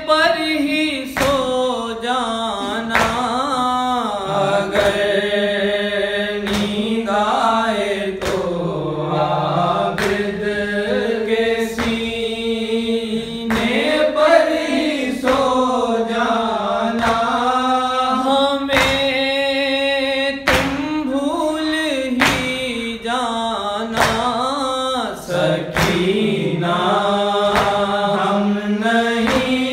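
A male voice chanting a noha, the Shia Muslim lament recited in Urdu, in a slow melodic line over a steady low drone, with a sharp percussive beat about once a second.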